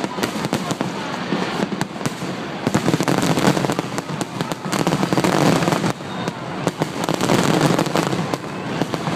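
A rapid barrage of fireworks explosions, bangs and crackles coming thick and fast with no break.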